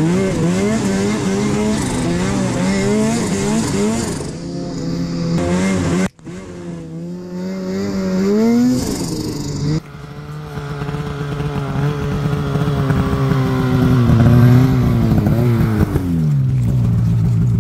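Snowmobile engine running while riding, its pitch rising and falling with the throttle. The sound cuts out abruptly about six seconds in and picks up again. Near the end the engine drops to a low idle.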